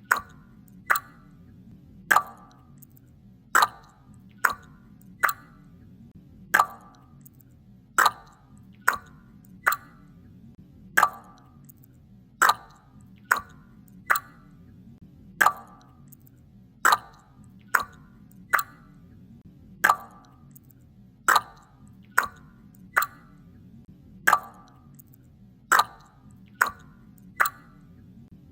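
Water drops falling one at a time, each a short plop, in a steady repeating pattern of about one a second, like a dripping tap.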